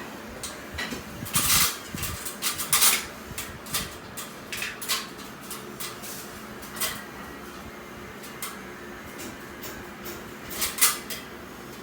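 Irregular knocks and clinks of hard objects against each other, with the loudest clusters about a second and a half in, about three seconds in and again near the end.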